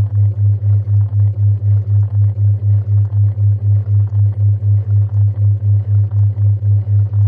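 A low electronic tone pulsing evenly about four times a second, the steady backing tone of a subliminal affirmations track, with a faint hiss underneath.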